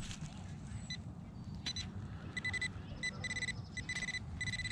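Metal detector sounding a steady high beep on a metal target, broken into several short pieces from about halfway in and then held near the end, over a low rumble.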